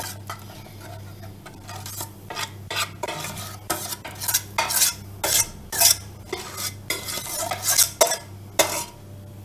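A spoon scraping and knocking against the inside of a glass bowl in quick, irregular strokes as thick hot milk pudding is scraped out of it.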